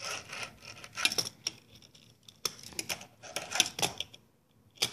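Tech Deck fingerboard clattering on a wooden table and a book's edge during attempted slide tricks: a run of irregular clicks and knocks from the deck and its trucks and wheels, going quiet near the end with one last click.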